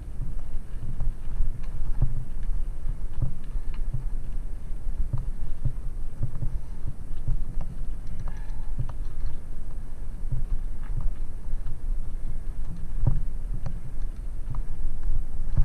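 Low rumble of wind buffeting a helmet-mounted camera, with irregular knocks, rattles and gravel crunches as a bicycle rolls over a loose gravel track.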